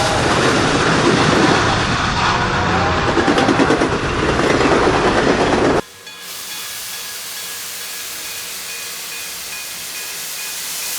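Recorded train sound effect: a running train's loud, dense rumble with some rhythmic pulsing. About six seconds in it cuts off suddenly and gives way to a steady hiss of escaping steam.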